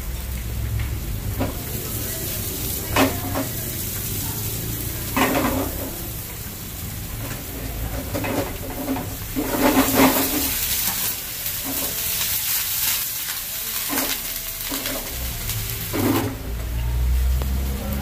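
Chopped vegetables and garlic sizzling in oil in a non-stick frying pan over a gas burner, with several short scraping strokes as the food is stirred and the pan tossed. Near the end the sizzle quietens suddenly as cream is poured into the pan.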